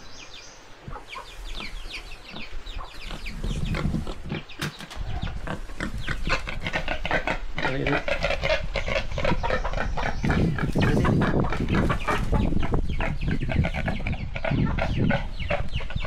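Chickens clucking, many short calls in quick succession, growing louder after the first couple of seconds.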